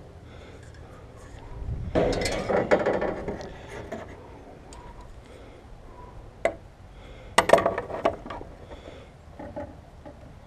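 Wooden board and metal combination square being handled and set in place for marking, with a burst of clattering knocks about two seconds in, a single sharp click a little after six seconds, and another clatter about seven and a half seconds in.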